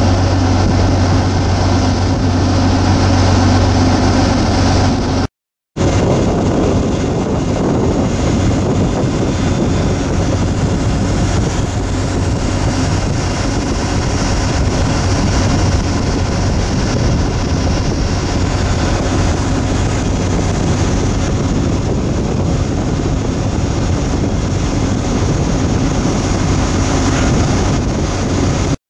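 Motor boat running steadily under way: a continuous low engine hum mixed with the rush of the wake along the hull and wind on the microphone. The sound cuts out for a moment about five seconds in, then carries on.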